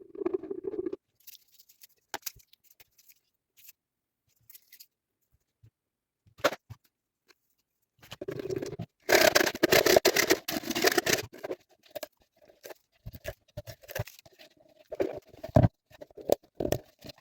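Handling and scraping noises from hand work on an object: scattered clicks and short scrapes, a louder stretch of rough scraping about nine seconds in lasting some two seconds, then intermittent knocks and scrapes.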